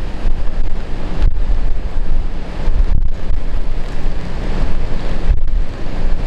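Strong typhoon wind buffeting the microphone in uneven gusts, over the steady noise of heavy storm surf.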